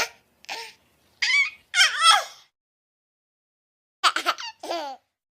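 Short, high-pitched vocal squeals in three quick clusters, with dead silence between them.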